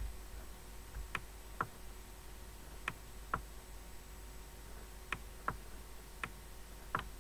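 Computer mouse button clicking repeatedly, the clicks mostly in pairs about half a second apart, over a faint low hum.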